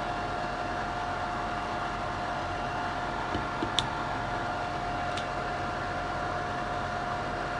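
Extraction fan running with a steady hum. A few light clicks sound about three to four seconds in and once more near five seconds.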